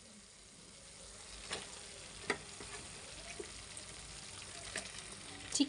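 Onion-ginger-garlic masala paste sizzling steadily in hot oil and ghee in a kadai, fried to the stage where the oil has separated from the paste, with a few light clicks.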